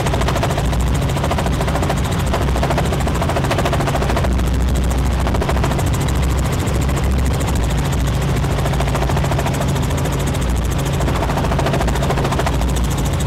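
Steady cabin noise of a Robinson R44 helicopter in flight, heard from inside the cabin. The rotor beats fast and evenly over the low drone of the piston engine.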